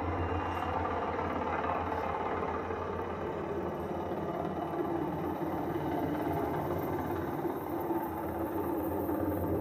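A low-flying helicopter's rotor and engine noise overhead: a steady rumble. It is heard as played back through a screen's speaker and recorded again.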